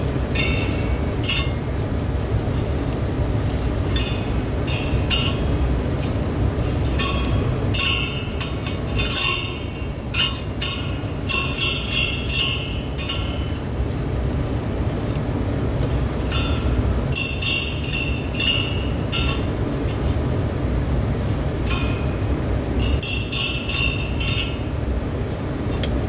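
Thin metal fan blades clinking and ticking in quick clusters as they are bent by hand to balance an out-of-balance blade on a box fan motor, over a steady low hum. The clinks come in three bunches: about a third of the way in, about two-thirds in, and near the end.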